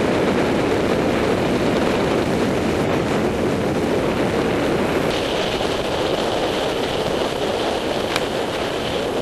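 Airflow of a paraglider in flight buffeting the microphone: a loud, steady wind rush. A faint steady high tone joins about halfway through.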